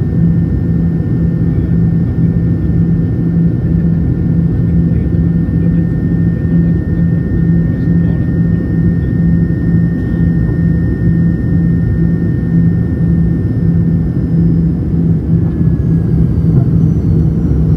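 Fokker 70's rear-mounted Rolls-Royce Tay turbofan running steadily in flight, heard inside the cabin right beside the engine: a constant loud rush with a steady low drone.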